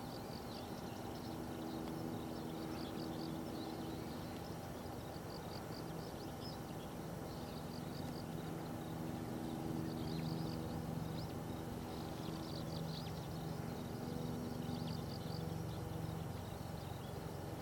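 Small birds chirping repeatedly in short high notes, over a low steady hum.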